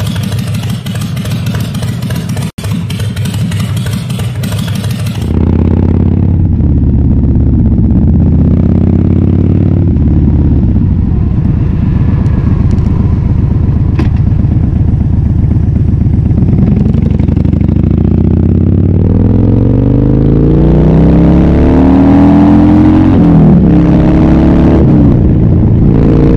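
Harley-Davidson Fat Bob's V-twin engine running through a KessTech ESM3 exhaust, heard from on the bike. After a hissier opening of about five seconds, the engine takes over. It rises and falls with the throttle, then revs up through the gears late on, with a drop in pitch at a shift.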